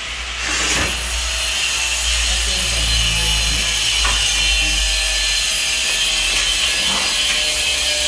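Electric fire alarm bell ringing steadily, starting about half a second in: the smoke detector has gone into alarm after a test-smoke aerosol spray.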